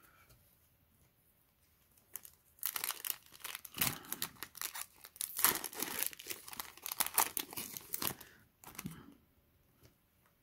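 A Yu-Gi-Oh! booster pack's foil wrapper being torn open and crinkled. It is a dense run of ripping and rustling that starts about two seconds in and stops near the end.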